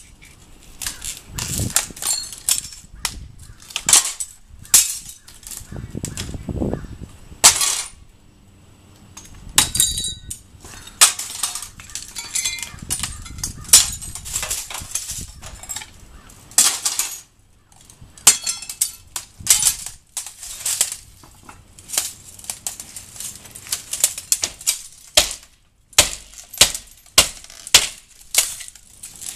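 Irregular sharp knocks, taps and clinks of hand tools working on a window frame, with occasional heavier bumps.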